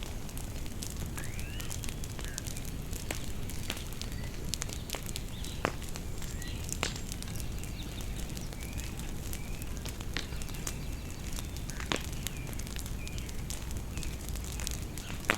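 Bonfire crackling and popping over a low steady rumble, with a few louder pops about six seconds and twelve seconds in. Birds chirp now and then in the background.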